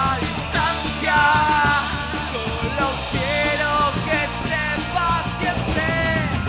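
Punk rock band playing live: lead vocals sung over electric guitar, electric bass and a drum kit.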